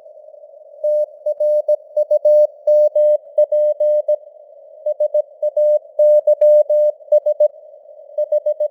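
Morse code sent at 17 words per minute as a single mid-pitched tone keyed on and off in short dots and longer dashes, over a faint bed of simulated radio hiss. The first second holds only the hiss before the keying starts, and the tone's strength varies a little from letter to letter, as a fading radio signal does.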